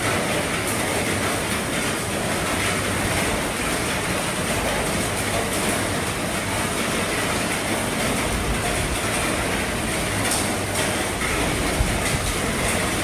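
Heavy rain drumming steadily on an RV's roof, with an occasional sharper tap from a single drop.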